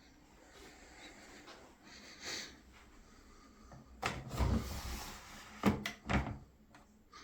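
A washing machine being handled: a heavy thump about four seconds in, then two sharp clacks.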